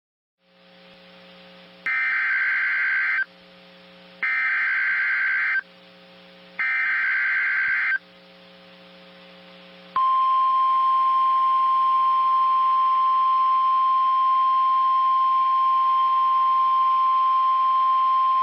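NOAA Weather Radio emergency alert: three short bursts of warbling SAME data tones, about a second apart, over receiver hiss and hum, followed about ten seconds in by the loud, steady single-pitch weather radio alarm tone that announces a warning.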